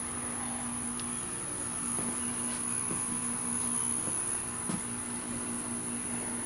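Insects chirring in a steady high-pitched chorus, with a low steady hum underneath and a couple of faint taps.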